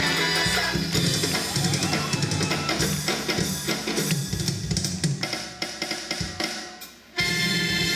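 Drum-led show music playing over loudspeakers. It thins out and drops away about seven seconds in, then a different track with long held tones starts abruptly.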